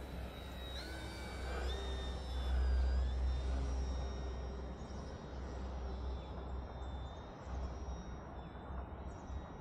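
Electric motor and propeller of an FMS Cessna 182 RC plane whining in flight. Its pitch steps up twice in the first two seconds, then wavers up and down, over a steady low rumble.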